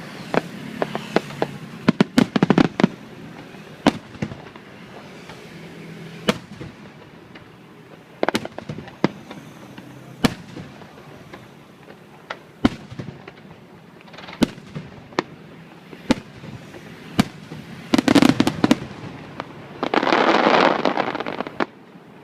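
Aerial fireworks shells bursting overhead, with sharp bangs at irregular intervals. About eighteen seconds in comes a rapid cluster of bangs, then a dense, continuous volley for about two seconds near the end.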